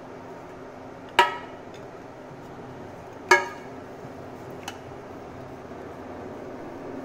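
Greased aluminium heart-shaped cake tin knocking twice against a stone countertop, about two seconds apart, each knock ringing briefly, then a lighter click. A steady background noise runs underneath.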